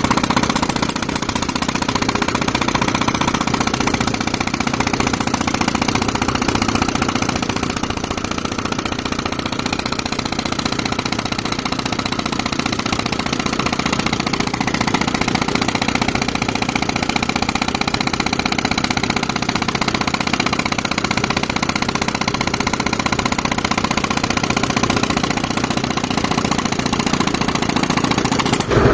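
Tractor engine driving an air compressor, running steadily with a fast, even pulsing.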